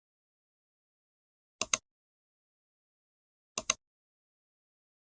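Two computer mouse double-clicks, each a pair of sharp clicks about a tenth of a second apart, the pairs about two seconds apart, with dead silence between.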